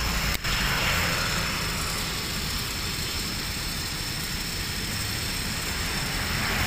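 Small 12 V DC lift motor of a mini electric stacker running steadily as it raises the fork platform at its slow first speed. There is a brief dip in the sound about half a second in.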